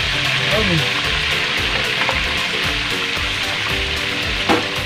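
Hot cooking oil sizzling and bubbling steadily as a whole chicken deep-fries in a wide pan, with a single light knock near the end.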